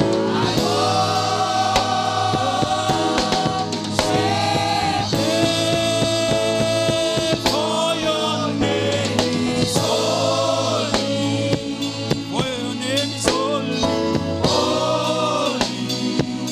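Live gospel praise music: a choir singing in unison with sustained, bending phrases over a band with drum kit and bass, in an energetic Nigerian praise style.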